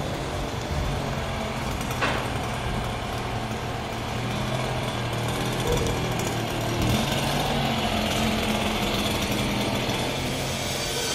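Diesel engine of a crane truck running steadily with a low, rattly hum, the pitch shifting slightly about seven seconds in, with a short sharp clank about two seconds in.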